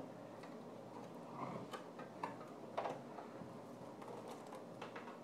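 Scattered faint clicks and small plastic cracks, about half a dozen at irregular intervals, as a Chevy Tahoe headlight lens is pulled away from its glued housing.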